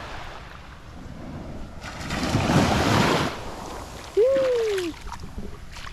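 A wave washing up on the beach, swelling about two seconds in and falling away a second or so later. Shortly after comes a brief loud vocal sound whose pitch rises and then falls.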